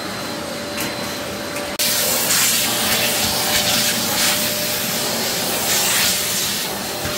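Vacuum cleaner running as its floor nozzle is pushed over a bare concrete subfloor, clearing dust before new wood flooring is glued down. The steady hiss turns louder and brighter about two seconds in.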